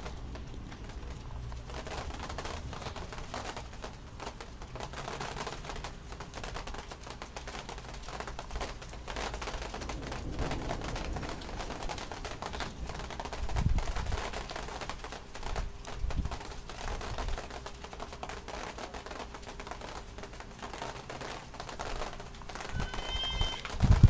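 Heavy thunderstorm rain falling, with drops ticking irregularly on a hard surface, and a few brief low thumps about halfway through and near the end.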